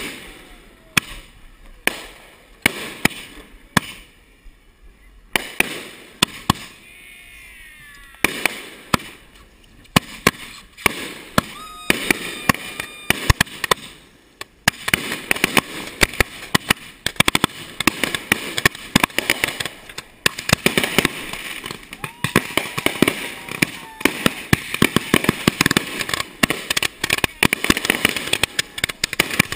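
Consumer fireworks finale: multi-shot cakes and mortar tubes launching and bursting. The bangs come a second or so apart at first, then build about halfway through into a dense, rapid barrage that barely lets up.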